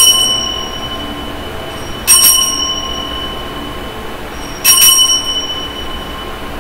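Altar bell rung three times, about two and a half seconds apart, each ring lingering and fading: the bell that marks the elevation of the chalice at the consecration of the Mass.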